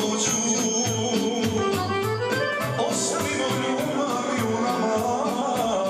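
Serbian folk song played by a band with accordion and electronic keyboard over a steady quick beat, with singing.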